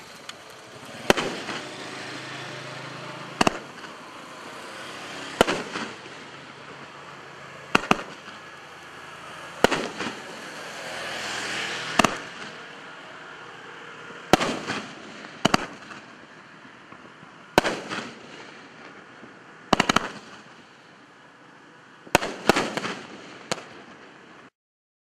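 A Magnus Flip Out 14-shot consumer fireworks cake firing: sharp reports about every two seconds over a steady hiss, with several shots in quick succession near the end before it cuts off.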